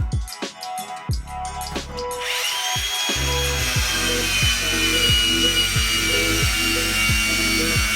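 Background music with a steady kick-drum beat. About two seconds in, a power tool polishing stainless-steel welds starts up with a high whine and runs steadily under the music.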